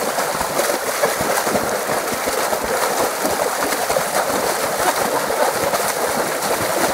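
Water splashing and sloshing steadily in a small paddling pool as several people kick their bare feet in it, a dense crackling spatter of droplets.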